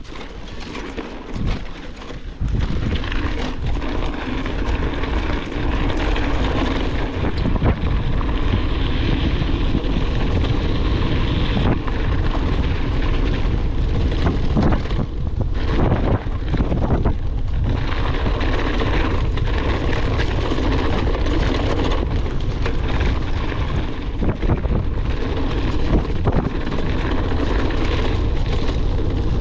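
Wind rushing over an action camera's microphone, with the rumble and rattle of a mountain bike ridden fast over a rough trail. It grows much louder about two seconds in.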